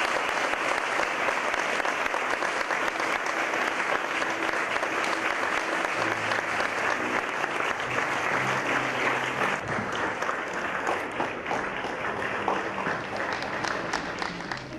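Congregation applauding steadily, thinning a little toward the end.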